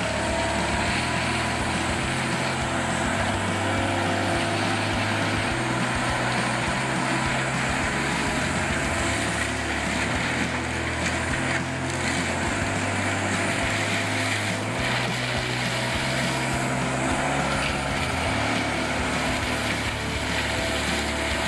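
Heavy forestry machinery, a tree mulching bulldozer, running steadily with a constant mechanical din. A low hum underneath shifts pitch in steps every second or two.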